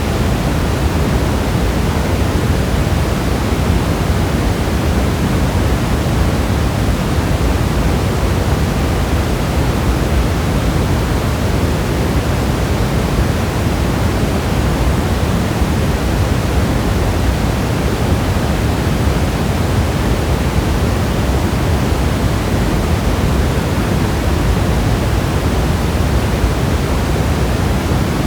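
Steady rain: an even, unbroken rushing hiss with a deep undertone, no single drops or thunder standing out.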